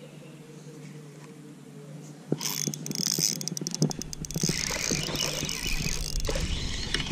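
Faint steady hum, then about two seconds in a bass is hooked on a spinning rod and reel. Sudden loud rustling, scraping and knocks follow as the angler's sleeve and arm rub against the body-worn camera during the hookset and fight.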